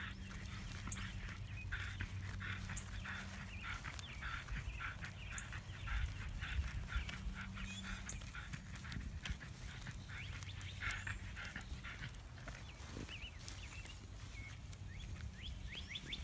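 A dog breathing rapidly in quick short strokes, several a second, easing off after about eleven seconds, over a steady low hum.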